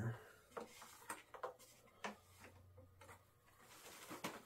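A few faint, light clicks and scrapes of a thin wire being poked about inside a hollow foam RC plane fuselage to hook servo leads.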